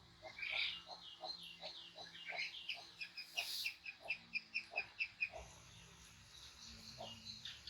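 An animal chirping: a rapid run of short, high chirps, about three a second, that speed up slightly and stop about two-thirds of the way through.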